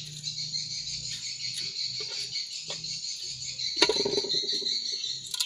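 A steady, high-pitched chorus of insects, with a few short knocks, the loudest about four seconds in, as a hand moves sea cucumbers around in a metal pot.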